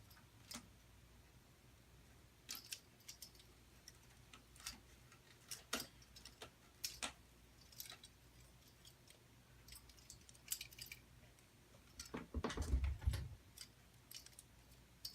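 Scattered light clicks and taps of computer parts being handled: a CPU cooler and its fan cable being positioned, with a louder bump and rustle near the end.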